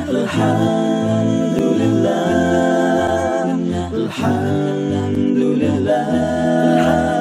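A cappella vocal jingle: several voices singing in harmony over a low vocal bass line that pulses about twice a second.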